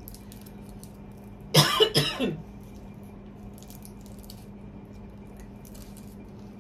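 A woman coughs twice in quick succession, about a second and a half in, over a steady low hum.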